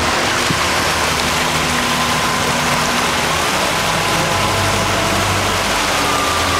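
Motorboat running at speed on open sea: a steady rush of wind and water spray over the engine's low drone.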